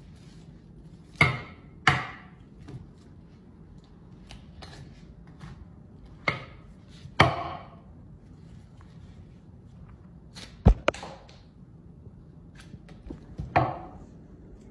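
Large butcher's knife chopping and cutting through a raw carcass on a wooden cutting board: sharp strikes a few seconds apart, some in quick pairs, with quieter cutting sounds between them.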